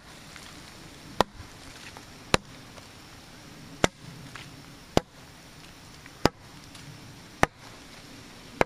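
A piece of wood struck hard against a tree trunk, seven sharp knocks at a slow, even pace of about one every second and a bit: wood knocking, a call meant to draw a response from a Bigfoot.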